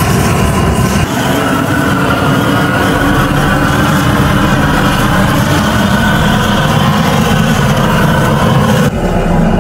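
Propane weed-burner torch running at full flame: a loud, steady roar, its tone shifting slightly near the end.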